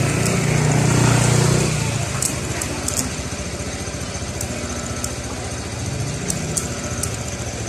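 Honda Beat Fi scooter's small single-cylinder engine idling steadily; it swells louder for the first couple of seconds and then settles. A few sharp clicks sound over it.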